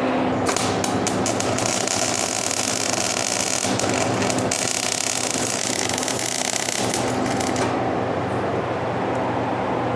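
MIG welder arc crackling and sizzling as a bead is laid around a steel weld-on chain hook. It starts about half a second in and cuts off about two seconds before the end, over a steady low hum.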